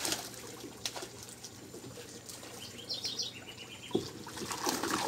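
Water splashing and dripping from a fish net hauled out of a tilapia tank, with scattered knocks and splashes. A bird chirps a quick run of short high notes about three seconds in.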